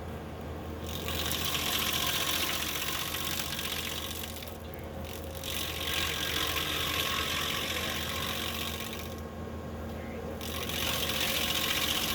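Skid-steer engine running steadily while a stump grinder attachment's toothed wheel chews into wood. The loud, rattling grinding noise swells and eases three times as the wheel makes passes.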